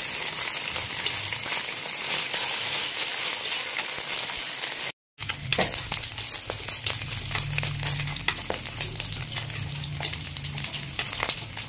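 Pork belly slices sizzling and spattering in a pan in their own rendered fat, the water they were started in boiled away, with a dense crackle of fine pops throughout. The sound drops out briefly about halfway through.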